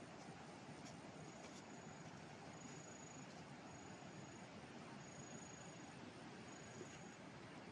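Quiet outdoor ambience with an insect calling: five high, thin, even-pitched trills, each about half a second long and spaced a little over a second apart.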